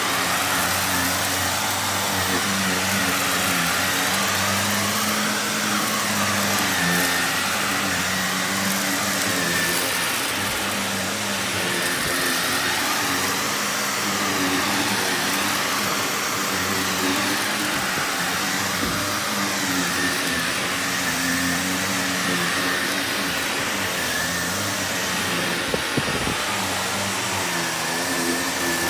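Upright vacuum cleaner running steadily as it is pushed back and forth over carpet scattered with small debris. Its pitch wavers slightly with the strokes, and a couple of light crunching clicks come near the end as bits are sucked up.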